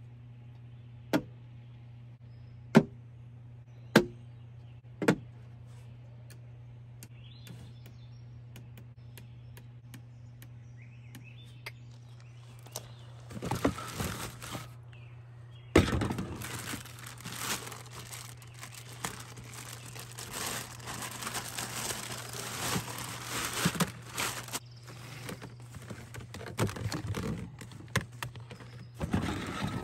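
Four sharp clicks in the first five seconds. Then, from about halfway through, a long stretch of crinkling and rustling as flexible aluminium and insulated heater ducting is pulled out of a plastic storage tote. A low steady hum runs underneath.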